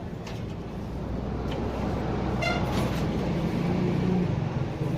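Street traffic: a motor vehicle's engine running close by, growing louder, with a short horn toot about halfway through.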